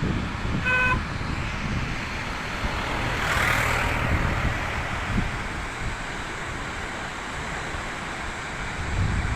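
Steady rushing of a waterfall with wind buffeting the microphone, a short beep about a second in, and the rush swelling briefly around three to four seconds in.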